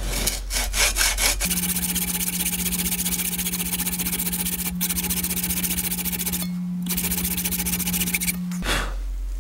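Hand hacksaw cutting through a soft aluminium bush clamped between wooden blocks. There are a few separate strokes, then from about a second and a half in the sawing is sped up four times into a fast, steady run of rasping strokes with a steady hum under it. Near the end it slows again to separate strokes.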